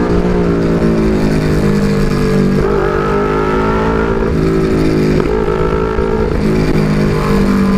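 Two-cylinder motorcycle engine running under way, with an exhaust the rider finds too loud. Its note steps down and back up in pitch a few times, most clearly about three seconds in, as the revs change.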